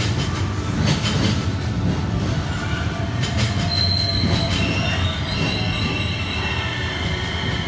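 JR West 223 series and 225 series electric trains pulling slowly into an underground station as they come to a stop. A low rumble is heard with a few clacks in the first second and a half, and a high-pitched squeal sets in about three and a half seconds in and carries on.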